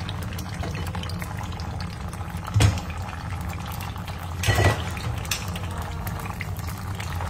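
Tomato sauce of jarred datterini tomatoes, garlic and olive oil simmering in a frying pan, crackling and bubbling steadily over a low hum. Two louder pops come about two and a half and four and a half seconds in.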